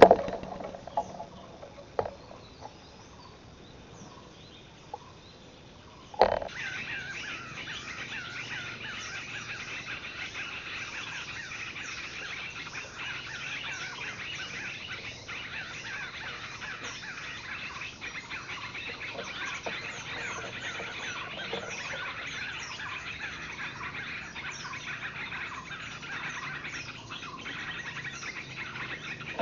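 Small songbirds chirping: after a quiet start broken by a few clicks and a knock about six seconds in, a dense, continuous chatter of many high chirps.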